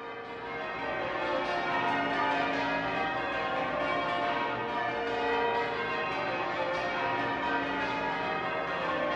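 Church bells ringing in changes: many overlapping bell tones struck in quick succession, swelling in over the first two seconds and then ringing on steadily.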